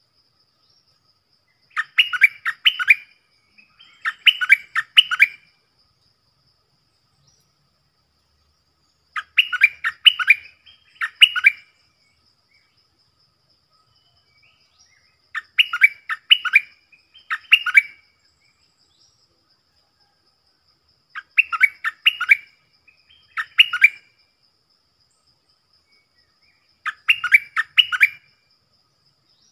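Stripe-throated bulbul singing: short, quick bubbly phrases of a few notes each, mostly coming in pairs, with the pairs about six seconds apart.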